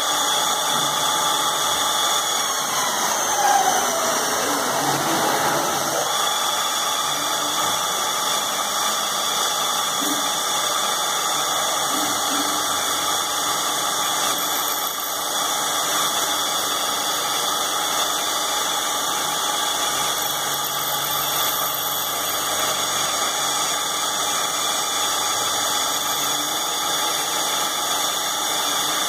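Automatic linear drilling machine for pipe and square tube running: a steady machine whine made of several constant tones. A few seconds in, a falling whine sweeps down over the steady sound.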